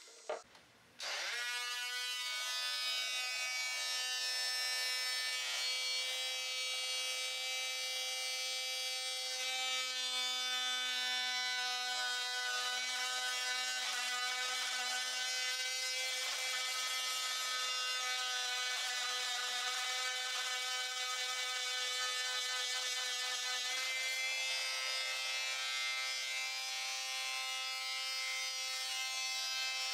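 Oscillating multi-tool starting up about a second in, its buzz rising quickly to full speed, then running steadily as its blade cuts into a plastic water supply pipe.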